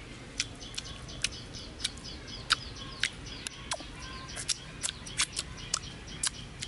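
Sharp, wet mouth clicks and lip smacks, about two a second, from eating with the fingers and licking them. Birds chirp throughout.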